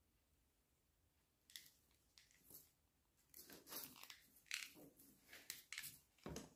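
Faint scraping and clicking of plastic parts being handled, starting about a second and a half in and growing busier: the cap and housing of a 13-pin trailer plug being worked onto the cable.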